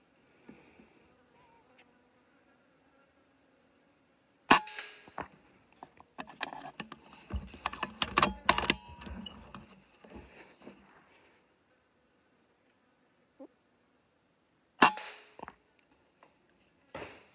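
Two sharp air rifle shots about ten seconds apart. Between them comes a run of clicking and rattling handling noise, all over a steady high-pitched insect drone.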